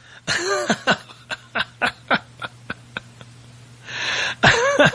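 A person laughing hard in quick repeated bursts that trail off, then a loud breathy gasp about four seconds in and another burst of laughter.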